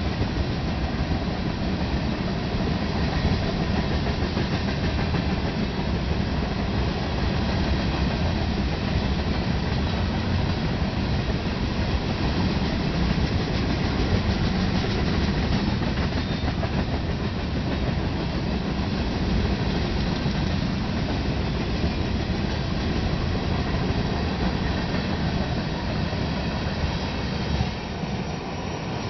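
Long freight train of railroad tank cars rolling past at a steady speed, the steel wheels running on the rails with a continuous, even noise that is heaviest in the low end.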